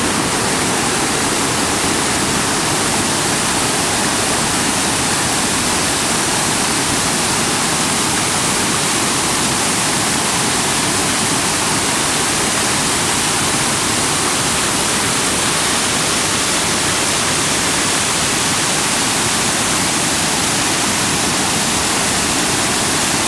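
Creek water pouring over the top of a waterfall and down a rocky cascade: a loud, steady rush of whitewater.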